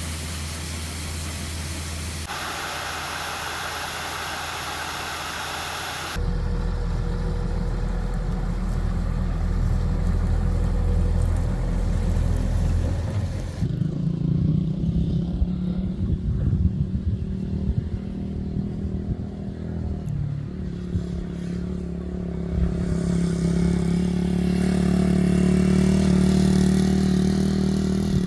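John Deere 6600 combine's six-cylinder diesel engine and harvesting machinery running steadily. A hiss comes first, then a low rumble, and the sound changes abruptly a few times, swelling near the end.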